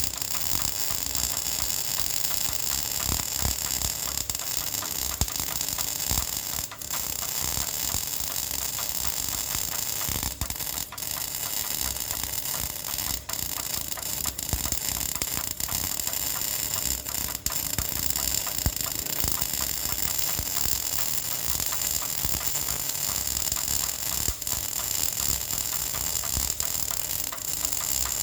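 Electric welding arc crackling and hissing steadily during a vertical-position (3G) weld, with a few brief dips where the arc falters.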